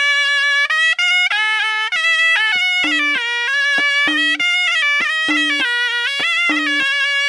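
Shehnai, a double-reed folk pipe, playing a melody solo: one held note at first, then quick phrases stepping up and down from note to note.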